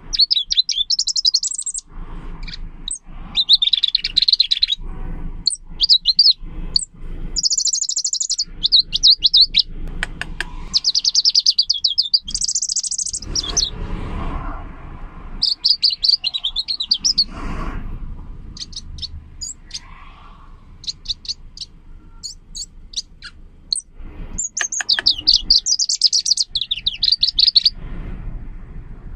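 A caged leaf warbler (柳莺) singing: rapid, high, clear trilled phrases a second or two long, repeated with short pauses, with only scattered single notes for a few seconds in the middle. Low knocks and a faint rumble sound underneath.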